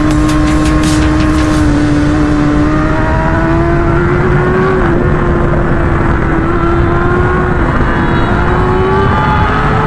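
Motorcycle engine running on the move, its note holding steady and then climbing gradually as the bike speeds up, over wind and road noise.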